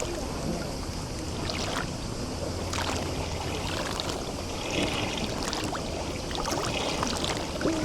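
Small waves lapping and splashing at the edge of a sea bay, with scattered splashes over a steady low rumble.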